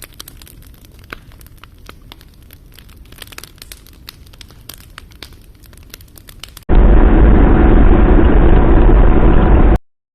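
Rain pattering on a shelter's fabric: many small, sharp ticks over a soft hiss. About two-thirds of the way through, it cuts to a much louder, deep rushing noise, which stops abruptly shortly before the end.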